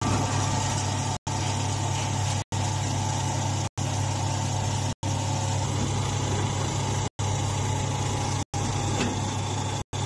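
Stationary hydraulic hay baler's power unit (electric motor, hydraulic pump and oil-cooler fan) running with a steady low hum. The sound drops out briefly to silence every second or two.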